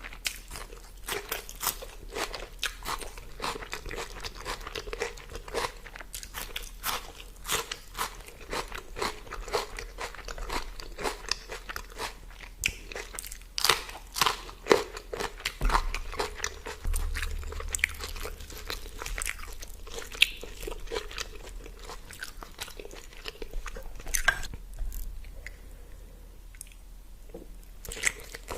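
Close-miked eating sounds: a person biting and chewing food, with irregular crunches and clicks, a few louder bites a little before halfway.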